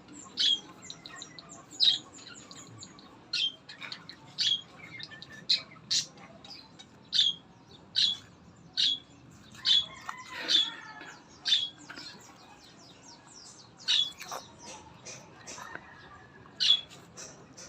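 Elongated tortoise biting into melon: short, crisp wet snaps about once a second, with a couple of longer pauses.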